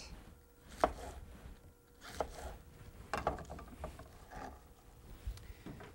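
Kitchen knife slicing through a cabbage wedge onto a plastic cutting board: a handful of crisp cuts and taps roughly a second apart, the sharpest about a second in.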